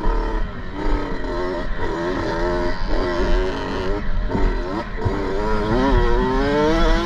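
Kawasaki KX65's small two-stroke single-cylinder engine, revving hard through the gears, its pitch climbing and then dropping several times as it shifts and rolls off, and climbing again near the end. Wind rumbles on the microphone.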